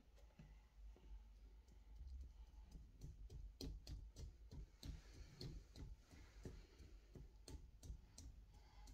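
Near silence: faint, irregular small clicks and handling noises over a low steady hum.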